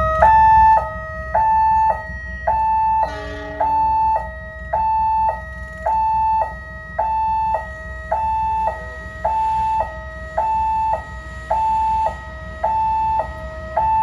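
Railway level-crossing warning siren sounding as a train approaches: an electronic two-tone wail switching steadily between a low and a high note, each held about half a second. A brief lower blast cuts in about three seconds in.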